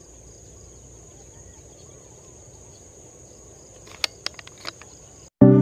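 Steady high-pitched insect trill over faint outdoor ambience, with a few sharp clicks about four seconds in. The sound cuts off abruptly near the end and loud background music starts.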